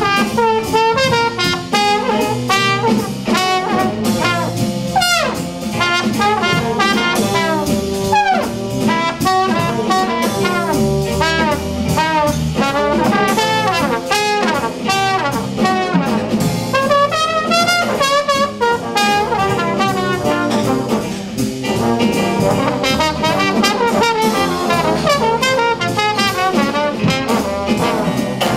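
A jazz trombone ensemble playing live. A trombone soloist plays quick runs of notes with bends and wavering held notes over the backing trombone section.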